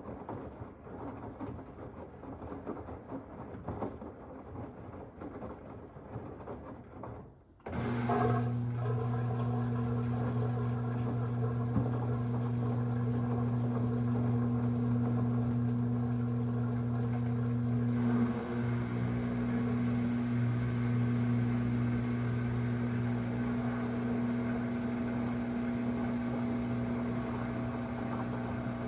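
Samsung WW25B6900AW front-load washer: an uneven rumbling for several seconds, then after a brief dip a loud, steady buzzing hum cuts in and holds. The owner says this louder buzz comes on when the washer has no water left to drain.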